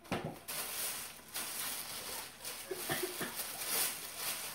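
Tissue paper rustling and crinkling as it is pulled out of a gift box.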